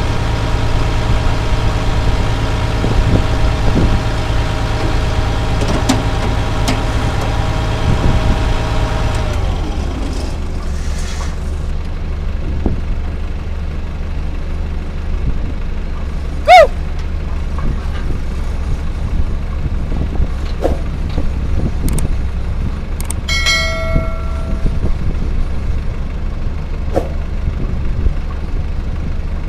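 Cat D3C bulldozer's diesel engine running at steady revs, then dropping to a lower, rougher idle about nine seconds in. About halfway through comes one short, sharp squeal falling in pitch, and near the end a brief steady tone.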